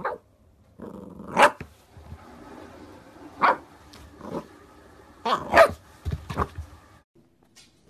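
Corgi puppy barking in play, about half a dozen short, sharp, high barks and yips spaced irregularly, with low growling between them.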